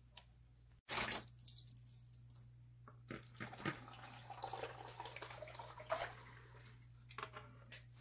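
Sake mash (moromi) poured from a bowl into a plastic funnel, splashing and dripping irregularly, with a sudden loud burst about a second in.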